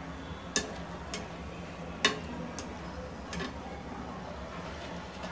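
A wire skimmer clicks sharply against a frying pan about five times, the loudest about two seconds in, over the steady sizzle of dahi vada dumplings deep-frying in oil.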